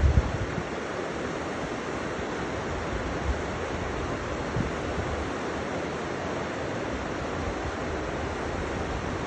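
River water flowing, a steady rushing, with a few low buffets at the very start.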